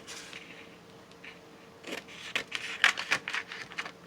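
Paper being handled and shifted by hand: soft rustling, then from about two seconds in a quick run of sharp crinkles and taps.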